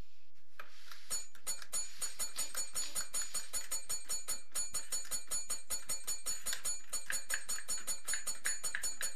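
A small tap bell struck over and over in a fast, even run of dings, about five or six a second, starting under a second in. It is the bell on a wheelchair that sets off a bomb.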